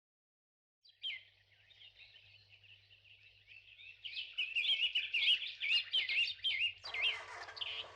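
Small birds chirping and singing, starting about a second in and becoming louder and busier about four seconds in, with quick repeated chirps.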